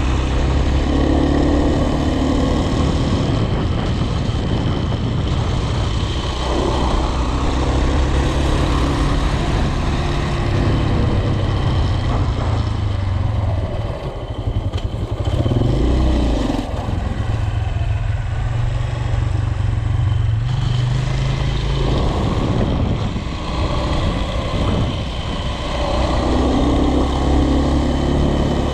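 A road vehicle's engine running while under way, its note shifting up and down, with road and wind noise throughout.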